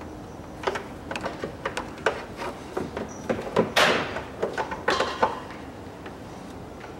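Handling noises of a hose being routed and pushed onto a tube fitting: a string of irregular clicks and knocks, with a brief scraping rustle about halfway through.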